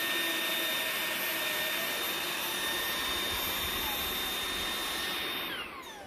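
Dreame V11 cordless stick vacuum running on turbo mode, a steady loud rush of suction with a high motor whine over it. Near the end the whine falls in pitch as the high-speed digital motor winds down.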